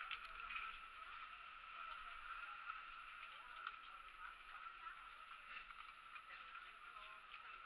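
Near silence: a faint steady hiss with a few small clicks.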